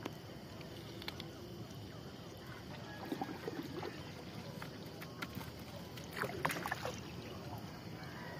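Fishing net being picked over by hand on a wooden boat: quiet rustling of the nylon mesh with scattered small clicks, over a low wash of river water. A few brief louder sounds come around three seconds in and again around six seconds in.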